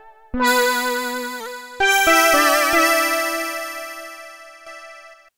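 The 'Expressive Osc' synthesizer preset from reFX Nexus 4's Ambient Sci-Fi expansion, played from a keyboard. A single held note comes in shortly after the start. About two seconds in, a chord enters and builds up note by note, then slowly fades away, dying out just before the end.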